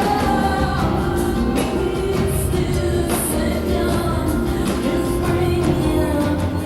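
Live rock music: a woman singing over a full band accompaniment, with long held notes.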